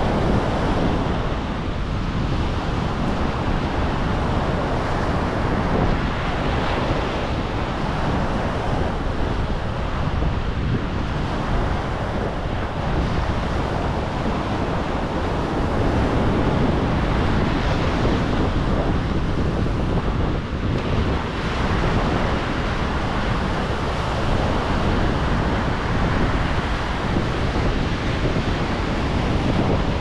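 Atlantic Ocean waves rushing in as a steady, continuous wash of surf.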